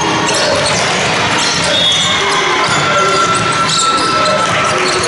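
Basketball bouncing on a hardwood court during live play, over the steady noise of a large sports hall.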